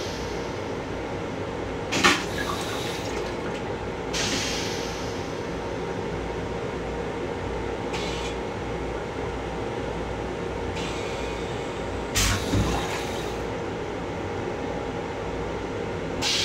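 Steady running noise of an M7 commuter railcar heard inside its restroom: a low hum under an even rush. A sharp knock comes about two seconds in, short hisses recur every few seconds, and a couple of dull thumps come around twelve seconds in.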